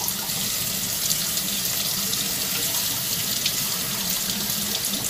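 Kitchen tap running steadily into a sink, the stream splashing over a whole fish as it is rinsed and cleaned under it.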